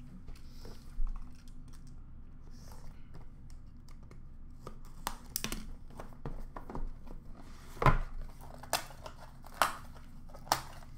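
Plastic shrink wrap crinkling and tearing as a hockey card box is unwrapped and opened, with several sharp taps and clicks from handling the box, the loudest about eight seconds in.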